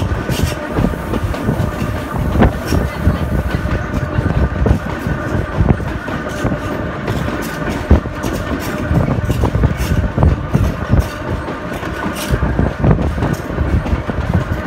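Sóller railway narrow-gauge train running along the track, heard from an open carriage window: a steady low rumble with constant irregular clatter of wheels over the rails and the carriage rattling.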